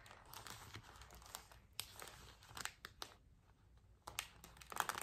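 Thin plastic sheet crinkling faintly as hands smooth it over a glass block to press out trapped air, with scattered soft ticks; a louder crinkle comes just before the end.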